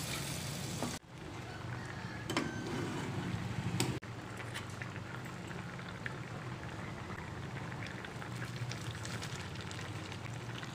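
Spiced curry gravy simmering and bubbling in a wok with a steady fine crackle. There are a few brief knocks in the first few seconds.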